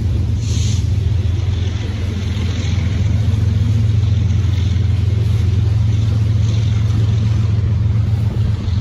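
A steady, low engine rumble that holds at an even level, with some hiss higher up.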